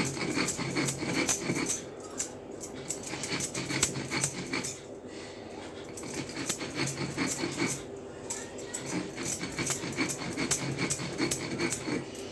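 Dry ginger and sugar being ground on a flat grinding stone: the stone scraping and crunching the pieces with a dense, gritty crackle that swells and eases every few seconds.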